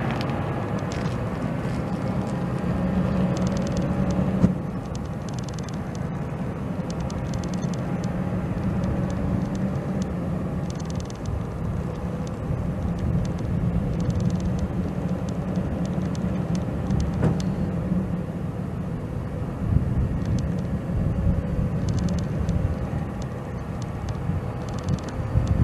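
Ford F550 Super Duty's 7.3-litre V8 turbo diesel running steadily, with a faint whine that drifts slowly up and down in pitch. A single knock about four seconds in.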